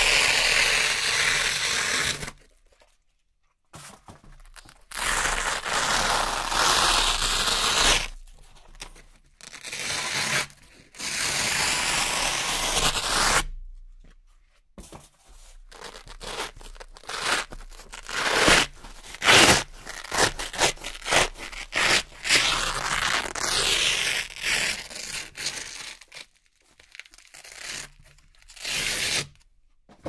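Velcro (hook-and-loop) strips being ripped apart, a series of crisp tearing rips. Several long rips of two to three seconds come in the first half, then quicker, shorter rips with brief pauses between them.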